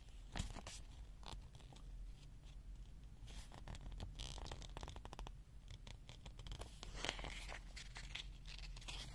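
Faint handling noises: irregular scratching and rustling with scattered clicks and a few quick runs of small clicks, over a steady low hum.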